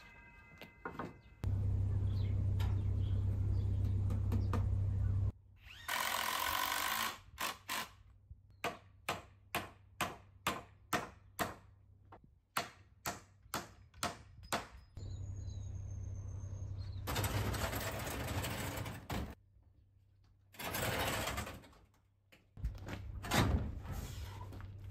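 Woodworking sounds on timber. A power tool runs steadily for about four seconds, then come a dozen short regular strokes about two a second, then several more stretches of tool noise.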